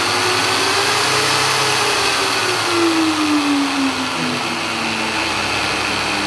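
720-watt angle grinder's motor running slowed through a 1000-watt speed regulator. Its whine rises in pitch for about a second and a half as the regulator knob is turned up, then falls back and settles lower and steady.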